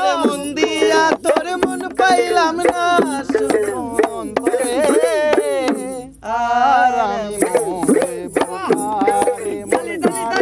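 Bengali folk music: a wavering melodic line over hand-drum beats, with a brief lull about six seconds in.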